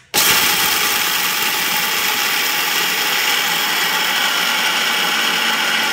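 Electric mixer grinder switched on right at the start, then running steadily at full speed as its steel jar grinds roasted, skinned peanuts into a coarse powder.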